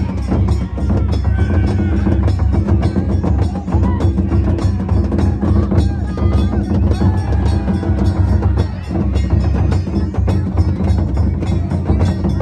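Danjiri festival music: taiko drums and metal hand gongs beaten in a fast, unbroken rhythm.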